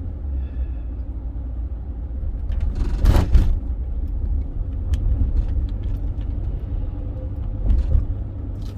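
Steady low road-and-engine rumble heard inside a moving car's cabin, with a brief louder burst of noise about three seconds in and a smaller one near the end.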